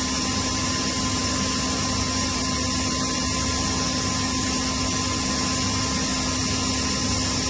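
Kaeser SK22 oil-injected rotary screw air compressor running steadily: a constant hum and whine over an even rushing hiss.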